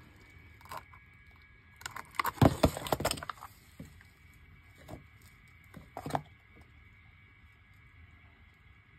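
Handling of a wet Asus Eee PC netbook: a cluster of plastic clicks and knocks about two seconds in as the charger plug and casing are handled, then a few lighter single clicks from the keyboard being pressed.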